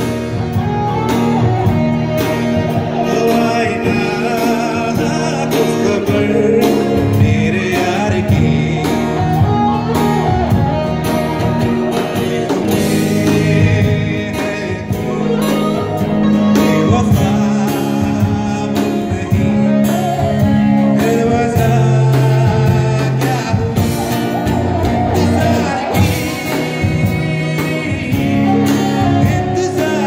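Live unplugged band playing a song: a man singing, with strummed acoustic guitar, a second stringed instrument and hand-played drum percussion.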